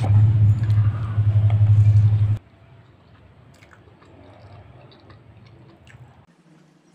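Close-miked chewing of soft chocolate bread with the mouth closed, heard as small wet clicks and squelches. For the first two seconds or so a loud low rumble drowns it out, then cuts off suddenly.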